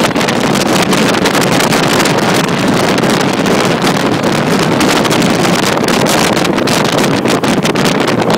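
Johnson 150 outboard motor running steadily at planing speed, largely buried under heavy wind buffeting on the microphone and the rush of water off the hull.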